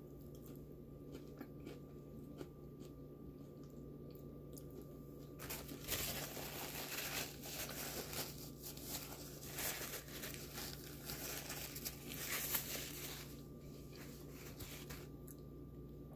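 Quiet chewing with faint mouth clicks. About five seconds in, several seconds of loud crinkling and rustling of McDonald's paper food packaging, which dies away near the end.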